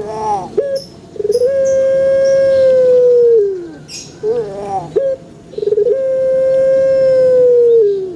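A puter pelung (Barbary dove, Streptopelia risoria) cooing: short wavering notes followed by one long, drawn-out steady coo that dips at its end, twice over.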